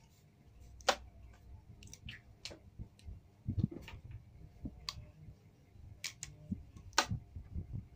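Scattered clicks and taps from a homemade PVC-pipe toy gun that fires rubber bands, being handled and loaded with rubber bands, the sharpest click about a second in and another near the end.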